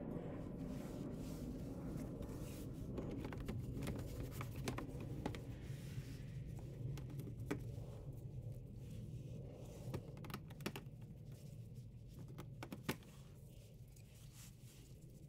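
Faint rustling and small handling clicks from a person shifting about under a car, over a low steady hum. One sharper click comes near the end.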